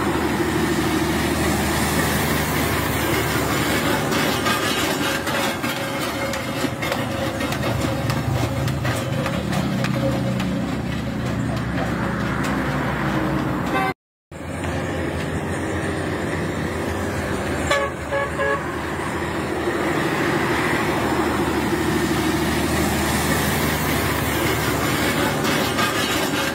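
Road traffic with a heavy cargo truck's diesel engine running as it drives past, and a vehicle horn sounding. The sound drops out for a moment about halfway through.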